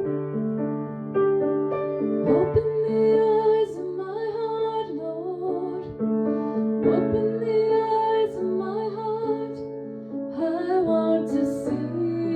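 A woman singing a slow worship song over piano accompaniment. The piano plays alone at first, and the voice comes in about two seconds in.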